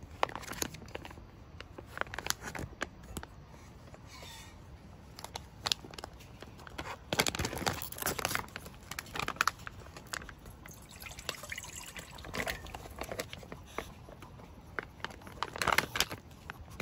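Ready-made oden emptied from a plastic retort pouch into a stainless steel pot: the pouch crinkling and rustling, with the broth pouring and splashing in bursts. The pouring is loudest about seven to nine seconds in and again near the end.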